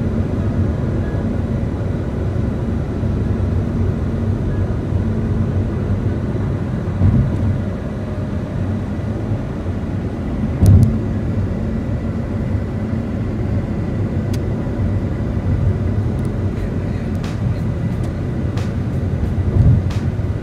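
Car cabin noise at freeway speed: a steady low rumble of tyres and engine, broken by a few brief low thumps and some faint ticks near the end.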